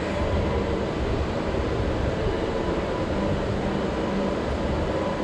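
Rental go-kart engines idling steadily while the karts wait in the pit lane.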